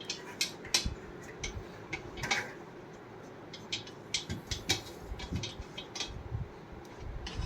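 Scattered light metallic clicks and taps from the protection bolts of a platform weighing scale being turned out.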